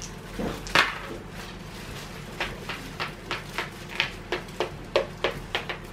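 A Monopoly playing piece tapped square by square along the cardboard board: a run of about a dozen light, sharp taps, about three a second, as it is counted forward. A single sharper knock comes just under a second in.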